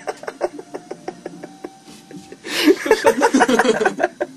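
Irregular small knocks and clicks for about two seconds, then loud voice sounds without clear words near the end.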